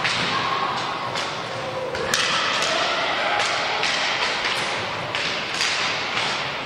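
Inline hockey play on a wooden hall floor: skate wheels rolling with a constant hiss, and repeated sharp clacks and thuds of sticks on the puck and floor, echoing in the hall. Voices call faintly now and then.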